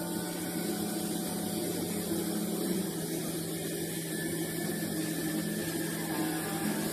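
Steady low drone of held tones that shift in pitch now and then, with a haze of noise behind it.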